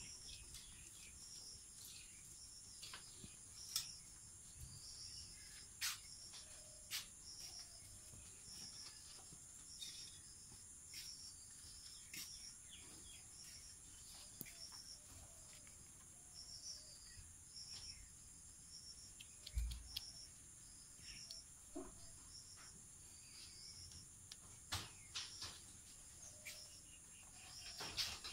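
Faint background of insects: a steady high-pitched drone, with a short high chirp repeating about every 0.7 s and scattered faint clicks.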